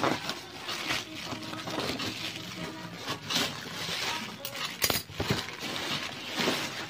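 Black plastic mailing bag crinkling and rustling as it is cut with scissors and pulled off a cardboard shoebox, with sharp scissor snips and clicks, the loudest about five seconds in. Background music runs underneath.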